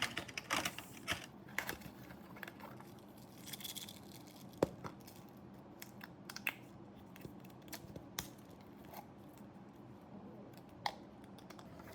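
Irregular light clicks and taps with brief rustling: small objects being handled by hand, a sharper click about four and a half seconds in.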